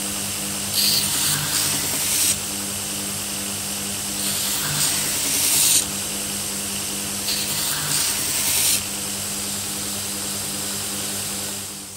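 Belt grinder running with a steady motor hum. Three times the steel club hammer head is pressed to the abrasive belt, each pass adding a louder grinding hiss of about a second and a half.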